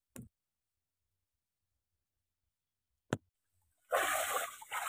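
Dead silence broken by two short clicks, one at the start and one about three seconds in. Near the end, a steady hiss of water sloshing comes in.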